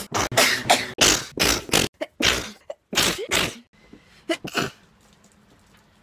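A woman sneezing in a rapid string of short, loud sneezes, about a dozen in the first three and a half seconds, followed by two more a second later.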